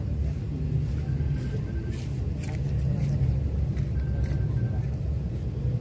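Steady low outdoor rumble, with a few faint short high tones and soft ticks about two seconds in.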